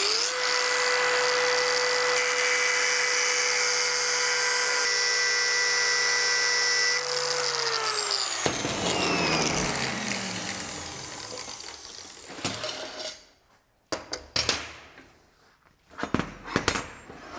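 Angle grinder running with a steady whine as it cuts lengthwise into a welded steel fillet-joint sample, so the weld penetration can be inspected. After about seven seconds it is switched off and winds down with a falling whine. Near the end come a few clinks and knocks as the steel pieces are handled.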